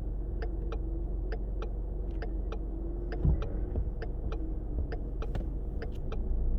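Car interior: a steady low rumble from the engine and road, with the turn-signal indicator ticking in even pairs about once a second. One dull thump comes about three seconds in.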